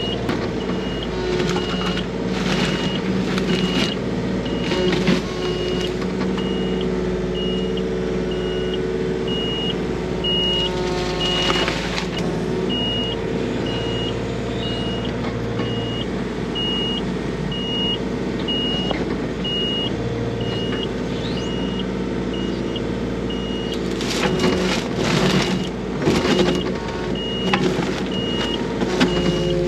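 Mini digger's diesel engine running under load, with a high warning beep repeating just under twice a second throughout. The bucket scrapes and knocks at frozen soil and ice in spells near the start and again in the last few seconds.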